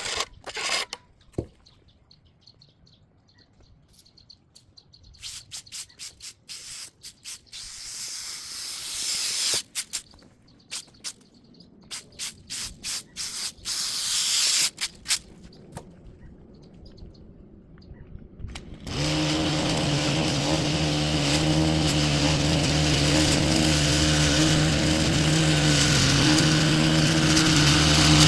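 Scattered rustling, scraping and clicking handling noises, then about two-thirds of the way through an engine starts suddenly and runs steadily, slowly getting louder.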